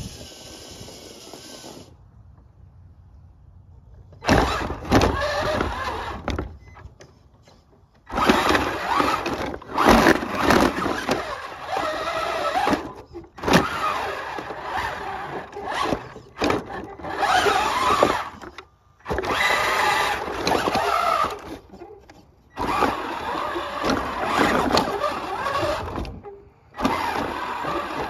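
Tamiya Clodbuster RC trucks' electric motors and gearboxes whining in repeated bursts of throttle, starting about four seconds in, the pitch rising and falling with speed as the trucks drive and push snow.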